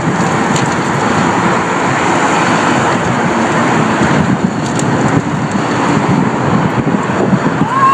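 Steady rush of road traffic going by, mixed with wind on the microphone.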